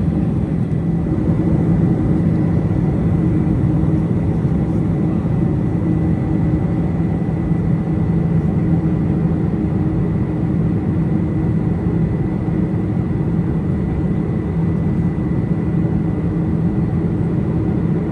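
Steady engine and airflow noise inside the cabin of a Boeing 747-400 with GE CF6-80C2 turbofans: an even low drone with a thin high whine held at one pitch.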